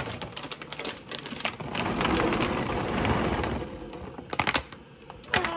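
Fresh cranberries poured from a bag into a stainless steel steam-juicer basket, a dense patter of berries pattering onto the pile, thickest in the middle and thinning out near the end.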